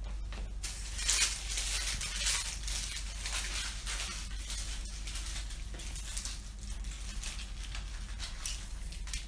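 Uneven rustling and crinkling noise over a steady low hum.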